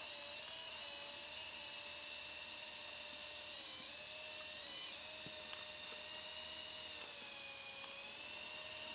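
Alloy Falcon 802 electric RC helicopter in flight: the steady high whine of its electric motor and spinning rotors, its pitch drifting slightly up and down.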